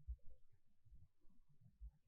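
Near silence: a sleeping woman's faint breathing close to the microphone, heard mostly as soft, irregular low rumbles.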